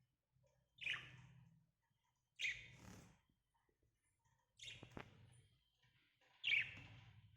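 Small pet parrots chirping: four short, sharp calls spaced about two seconds apart.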